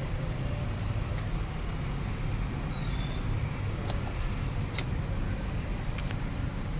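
Steady low rumble of background noise, with a few faint light clicks, metal on metal, in the second half as the timing belt tensioner is worked into place.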